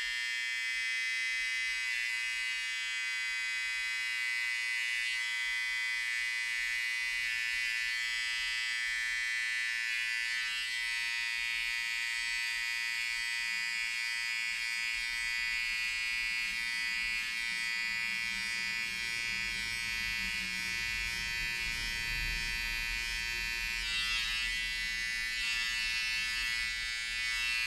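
Small electric pet clippers running continuously with a steady, high buzz, trimming the fur between a cat's paw pads.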